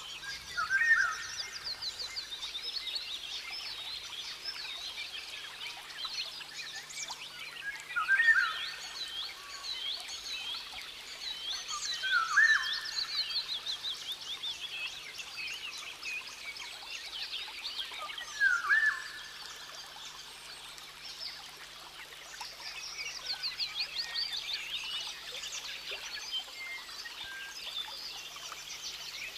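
Rainforest ambience: a dense chorus of birds chirping and trilling in rapid high notes, with a louder rising call heard four times, several seconds apart.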